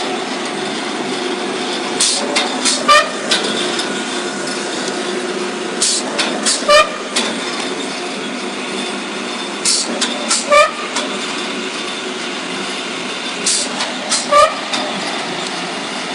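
Free-fall punching pile driver working: a steady machinery drone with a cycle repeating about every four seconds, each time a short hiss of air and a sharp metallic clank with a ring as the free-falling hammer strikes, four strikes in all.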